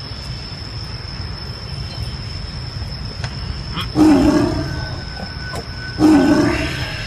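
White tiger snarling twice at close range, two sudden loud bursts about two seconds apart, each fading over about a second.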